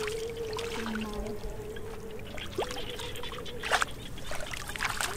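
Shallow muddy water trickling and splashing lightly as hands and a basket trap are worked through it, with a few small splashes, the clearest near the end. A faint steady hum runs underneath.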